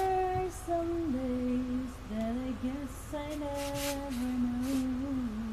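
A woman humming a slow tune to herself, long held notes stepping up and down in pitch, with a few brief hissing sounds.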